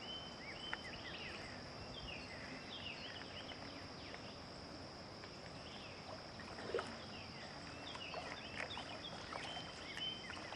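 Outdoor ambience of birds chirping and calling over a steady high-pitched insect drone, faint throughout.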